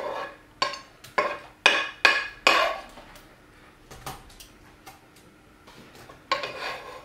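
A metal spoon knocking and scraping against a frying pan while food is spooned out, a run of about five sharp clinks in the first three seconds, then a few softer ones near the end.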